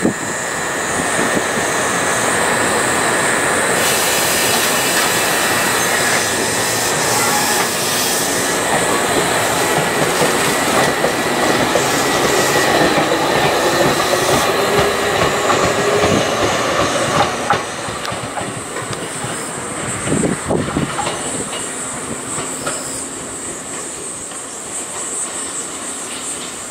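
Ohmi Railway 100-series electric train running along the station platform, with wheels clacking and squealing on the rails. The noise is loudest for the first half and falls away after about seventeen seconds.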